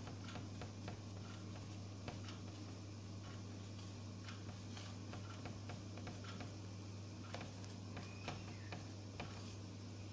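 Marker pen writing on a whiteboard: faint irregular taps and short squeaks as the letters are drawn, over a steady low hum in the room.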